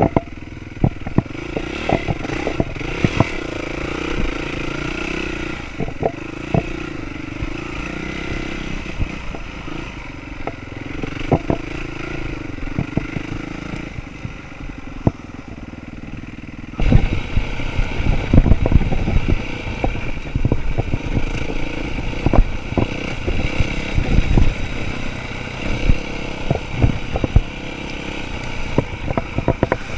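Dirt bike engine running and rising and falling in pitch as it is ridden over a rough trail, with frequent sharp knocks and rattles from the bike over bumps. About halfway through, a much louder, denser low thumping and rattling starts abruptly and keeps on.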